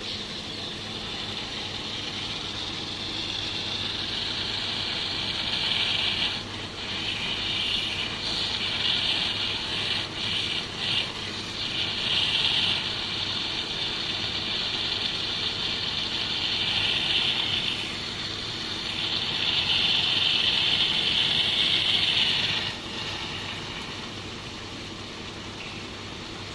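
Pressure washer running with a steady motor hum while its water jet hisses into a diesel particulate filter to flush soot out of it. The spray noise swells and fades several times and drops away near the end.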